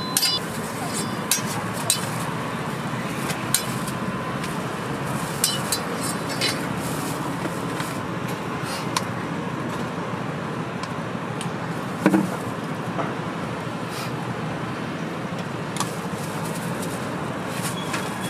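Steady street background noise with traffic, broken by scattered light clicks and knocks of a crepe vendor's utensils and jars; the loudest knock comes about twelve seconds in.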